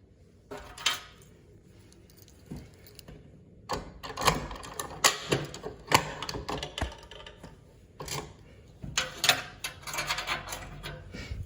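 Handling noise: spells of quick clicks and rattles, one short spell near the start, a longer one from about a third of the way in, and another near the end.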